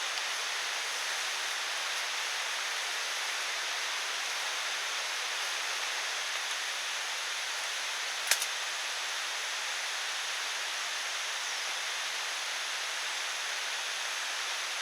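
Steady rainfall, an even hiss, with a single sharp click about eight seconds in.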